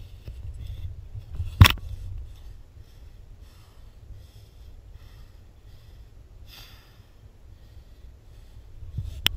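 A climber's breathing in soft puffs over a low rumble of wind on the camera microphone. There is one sharp knock about one and a half seconds in, and a smaller click near the end.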